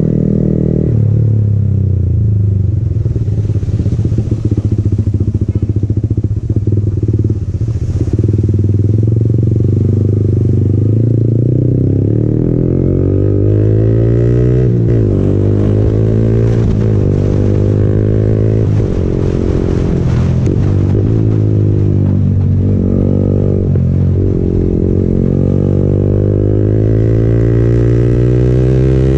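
Yamaha MT-15's single-cylinder engine running through an aftermarket Akrapovic exhaust, heard from the rider's seat while under way. Over the second half it accelerates in several rising pulls, the pitch dropping at each upshift.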